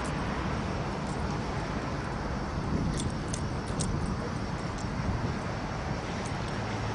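Steady outdoor background noise with a low hum, and a few short, light jingles about three to four seconds in.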